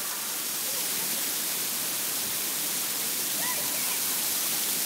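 Automatic water fountain jets spraying and splashing down, a steady rushing hiss of water close by, with faint voices in the background.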